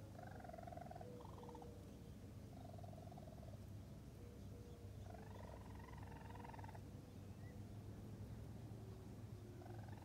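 Raccoon kits chirping: about four short, trilling calls, the longest lasting nearly two seconds, over a faint low steady hum.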